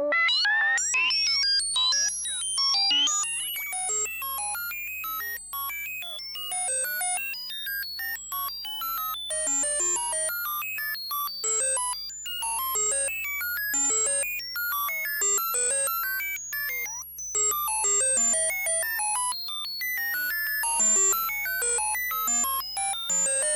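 Synthesized electronic beeps at random medium and high pitches, several a second in rapid succession, in the manner of sci-fi computer or data-transmission chatter. The first few seconds also carry quick rising and falling glides, and a faint steady low hum sits underneath.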